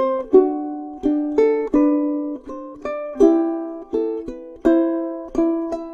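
Background music: a ukulele plucking chords and melody notes, each one struck and left ringing until it fades.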